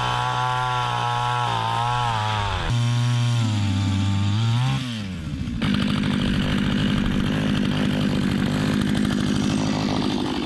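Small two-stroke engine running at high revs. Its pitch drops in steps during the first few seconds, sags and climbs back as if taking load, then settles into a rougher, steady run for the second half.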